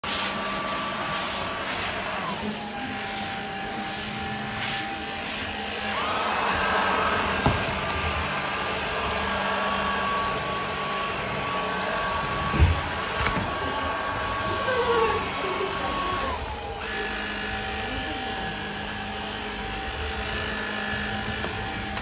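Stick vacuum cleaner running steadily, its motor whine stepping down in pitch about two seconds in, back up about six seconds in and down again later. A sharp thump about halfway through is the loudest moment.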